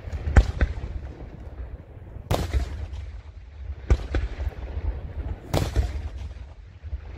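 Daytime fireworks shells bursting in the sky: about five sharp bangs, irregularly spaced one to two seconds apart, each followed by a rolling echo, over a low rumble. The loudest bang comes near the start.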